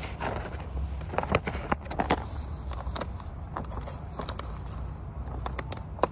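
Plastic takeaway bento container being closed and handled: scattered sharp clicks and crackles, several in quick succession about one to two seconds in and more near the end, over a steady low rumble.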